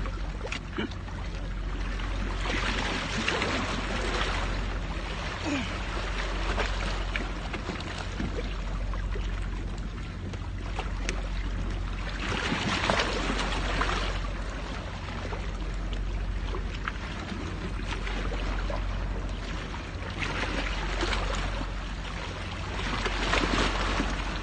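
Wind rumbling on the microphone and sea washing against the rocky shore: a steady low rumble with a rushing hiss that swells up about four times, and a few faint clicks.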